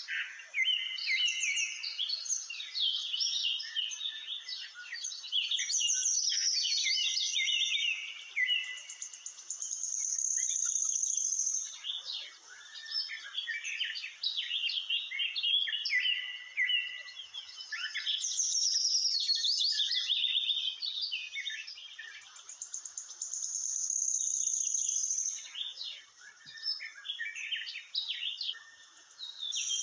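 Songbirds chirping and singing: many overlapping quick chirps and trills, with a long high steady note twice.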